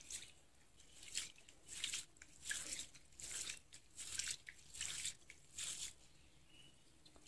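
A hand rubbing and squeezing soaked rice and split lentils in a bowl of water: about eight wet, gritty swishes, roughly one every half second to second, stopping about six seconds in.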